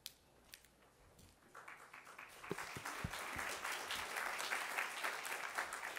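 Audience applauding, starting about a second and a half in, swelling, then tapering off near the end. A few low bumps sound in the middle.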